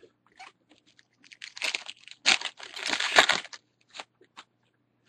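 Wrapper of a pack of baseball trading cards being torn open and crinkled, in two stretches of crinkling near the middle, with light handling clicks around them.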